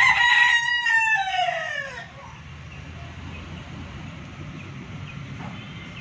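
A rooster crowing once: one long call that ends about two seconds in with a falling pitch. A steady low hum follows.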